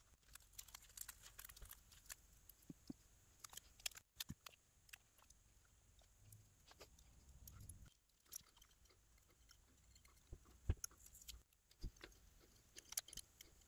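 Near silence with faint scattered clicks and rustles of small hand work: blue painter's tape being pressed onto the parts of a cast-iron block plane.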